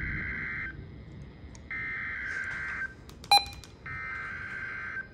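Emergency Alert System SAME header: three bursts of buzzing digital data tones, each about a second long, that open a severe thunderstorm warning. A short sharp click falls between the second and third bursts.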